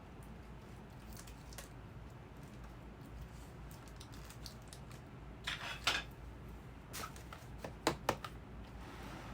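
Items being handled and set into a gift basket: a few short rustles and light clicks about halfway through and again near the end, over quiet room tone.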